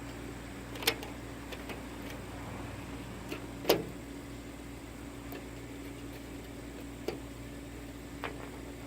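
Four sharp clicks or knocks over a steady low hum: about one second in, a louder one a little before four seconds, then two more near seven and eight seconds.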